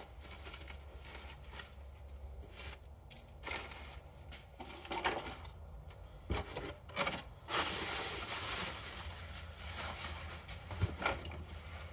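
Plastic bubble wrap and a cardboard shipping box rustling and crinkling as they are handled and cleared out, in uneven bursts with a longer stretch of rustling about two-thirds of the way in and a few sharp knocks.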